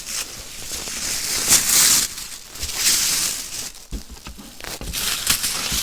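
Packaging rustling and crinkling in irregular swells, with scattered small clicks, as it is handled and pulled open.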